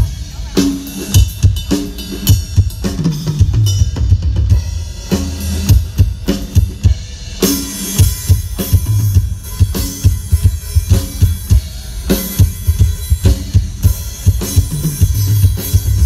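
Drum kit playing a steady beat through a TW Audio line-array PA system during a sound test: heavy kick drum with snare hits, and cymbals coming in brighter about halfway through.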